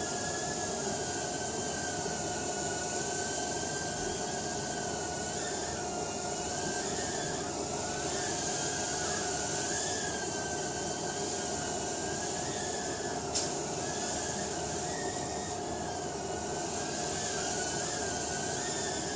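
Eachine E010 micro quadcopter hovering: the high whine of its small brushed motors and propellers, its pitch wavering up and down as the throttle is worked to hold it level. A single sharp click about two-thirds of the way through.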